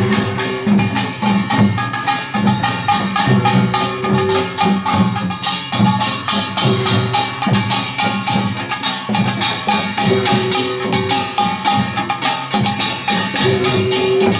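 Korean pungmul band playing a procession rhythm: fast, dense clanging of small hand gongs over janggu and buk drums. A held, ringing tone returns about every three seconds.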